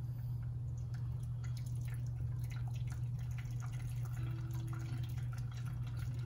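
Wort draining from wet mashed grain through a strainer into the brew pot during sparging, in many small irregular drips and splashes, over a steady low hum.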